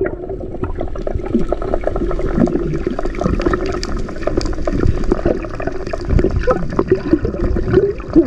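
Sea water churning and gurgling close to the microphone, with a steady low hum beneath it.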